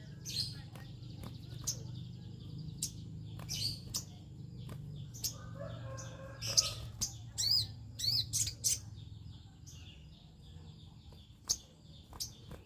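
Sogon (crested jay) giving scattered short, sharp chirps and brief trills, irregularly spaced, over a steady low hum.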